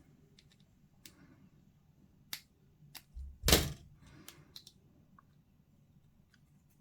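Sparse small clicks and taps of hobby tools working on plastic miniature parts, with one louder knock about three and a half seconds in.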